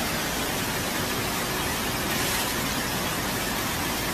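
Steady, even rushing of fast-flowing brown floodwater.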